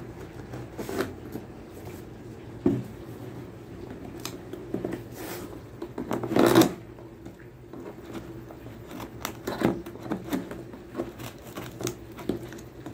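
Scissors cutting through packing tape along the seam of a cardboard box: an irregular run of short snips and scrapes, the loudest about halfway through.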